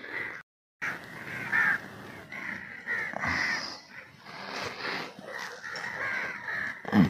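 Several crows cawing again and again, their calls overlapping. The sound drops out for a moment just under a second in, and there is a short low thud near the end, louder than the calls.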